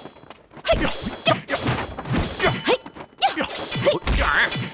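Film fight-scene sound effects: a quick run of blows and whooshes of swung fists and weapons, about two to three a second.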